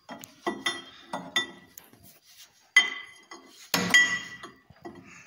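A 36 mm steel wrench clinking on the crankshaft pulley nut of a T-25 tractor's diesel engine as the pulley is turned by hand to find the injection timing point. There are a few light metal clinks, then two louder ringing clanks about three and four seconds in.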